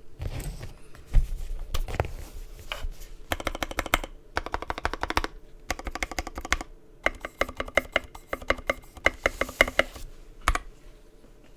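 Typing on a 65% mechanical keyboard with lubed and filmed Gateron Milky Yellow linear switches in an aluminum plate: quick runs of keystrokes with short pauses between them, and a few single heavier strikes, the loudest about a second in and another near the end.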